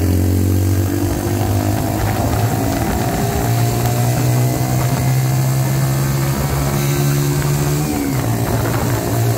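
Mutt Akita 125's single-cylinder engine running through a slash-cut exhaust freshly repacked with glass fibre, heard on the move: the pitch climbs steadily for several seconds, drops sharply near the end as it shifts up a gear, then starts climbing again.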